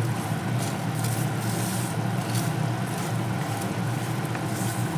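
A steady low mechanical hum with a hiss over it, and faint scraping and rattling of whole spices stirred as they dry-roast in a pan.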